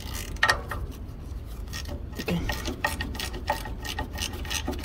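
Ratchet wrench clicking in quick, uneven strokes with some scraping, loosening the 10 mm bolts that hold the PM sensor box.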